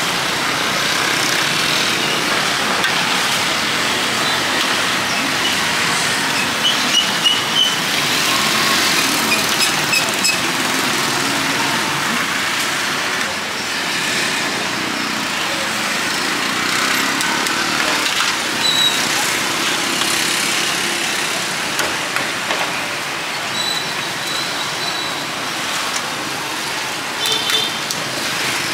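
Steady street traffic noise from passing cars and motorbikes, with faint voices and a few short high clinks.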